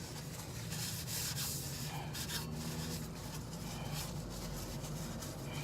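Irregular rubbing and scraping handling noise.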